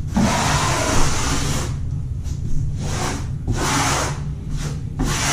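Trowel scraping thinset mortar in a long stroke, then several shorter strokes, over a steady low hum.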